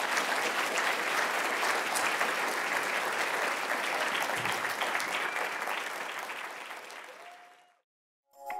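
Audience applauding, a dense even clapping that fades out near the end.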